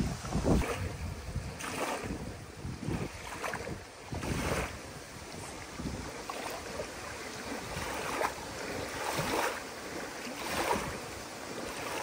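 Small wind-driven waves lapping and washing up onto a sandy lake shore, one wash every second or two, with wind buffeting the microphone in gusts.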